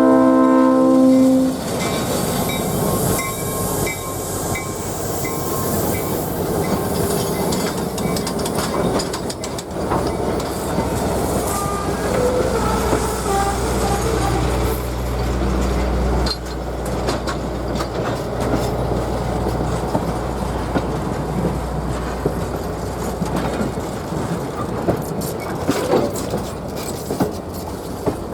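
Diesel locomotive horn (RP39-2C 901) sounding a chord that cuts off about a second in. It is followed by a passenger train rolling past with a steady rumble and wheel clicks over the rail joints. A locomotive's diesel engine drone swells from about ten seconds in and fades out near twenty-four seconds.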